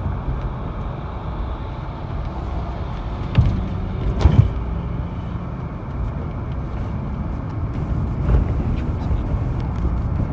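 Steady low rumble of a moving road vehicle, engine and tyres on the road, heard from inside the cabin, with a few short thumps around three to four seconds in.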